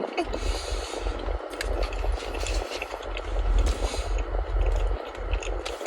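Chewing and crunching on a Korean corn dog's crispy cornmeal batter, with crackly bites about half a second in and again near four seconds, over a low rumble.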